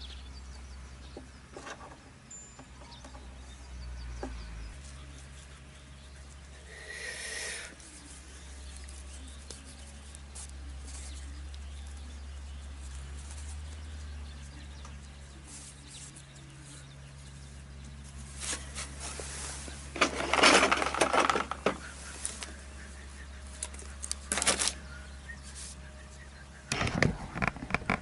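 Close rustling and scraping of hands working jute twine around a small rubber tyre, over a steady low rumble; the rustling comes in louder bursts about two-thirds of the way through and again near the end.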